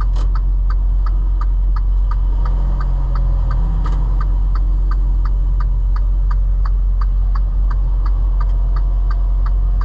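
Semi-truck turn signal ticking evenly, about three ticks a second, over the steady low drone of the truck's diesel engine and road noise in the cab.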